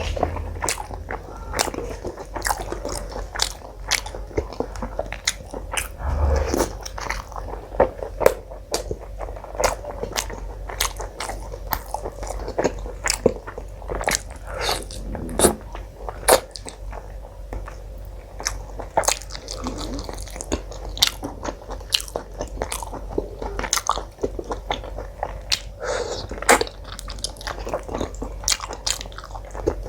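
Close-miked eating: wet chewing and biting with many irregular small clicks and smacks of the mouth, over a steady low hum.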